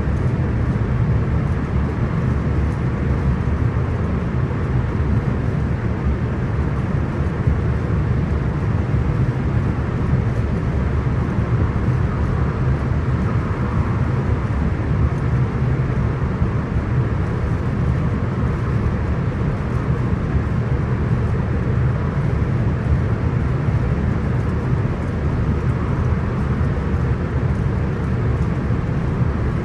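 Cabin interior of a Hitachi electric multiple-unit passenger train running steadily, with a constant low rumble of wheels and running gear and no change in speed.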